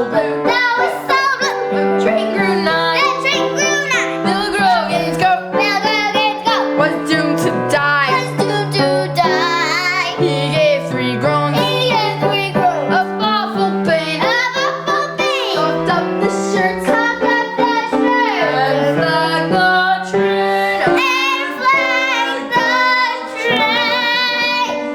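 A girl singing a song with piano accompaniment; the piano holds steady notes and chords beneath her voice.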